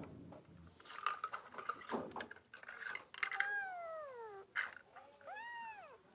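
A young kitten meowing twice: a long meow that falls in pitch, then a shorter one that rises and falls near the end. Before the meows, light clicks and rustling.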